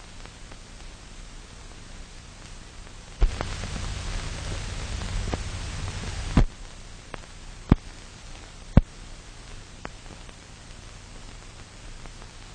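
Steady hiss of an old optical film soundtrack with no narration, broken by sharp clicks and pops. The hiss grows louder, with a low hum, for about three seconds starting a few seconds in; a click opens and closes that stretch, and a few more clicks follow.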